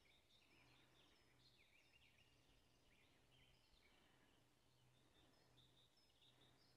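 Faint birdsong: several songbirds giving quick chirps and short warbling phrases, heard over a faint steady low hum.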